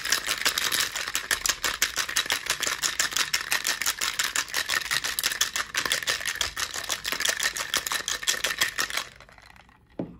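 Ice rattling hard inside a stainless-steel cobbler cocktail shaker, shaken fast and steadily, then stopping suddenly about nine seconds in. A single knock follows as the shaker is set down on the wooden table.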